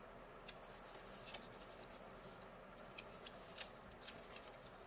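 Faint paper handling as a square sheet is folded and creased: a few soft, scattered crinkles and ticks over a quiet hiss.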